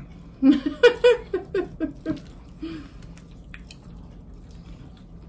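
A person's voice for about two seconds, broken into short bursts, then quiet eating at the table with a few faint clicks of a fork.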